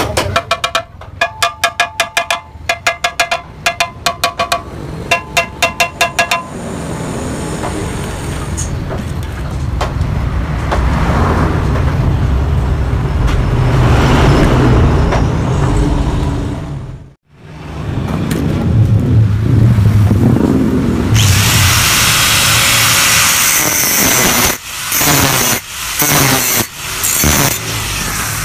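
A steel motorcycle exhaust being struck with a hammer, a dozen or so ringing metallic blows in quick groups. A long stretch of loud, steady machine noise follows, with a short break in the middle. From about two-thirds of the way through it turns to a bright hiss, broken by several short dropouts near the end.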